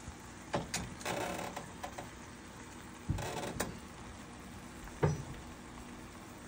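Kitchen handling noises around a frying pan on the stove: a few sharp knocks, the loudest just after three seconds in, and two short scraping rattles.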